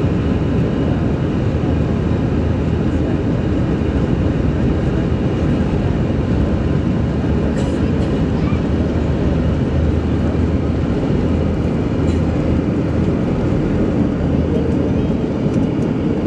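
Steady cabin noise inside an Airbus A321 speeding down the runway on its takeoff roll: low engine roar with the rumble of the wheels.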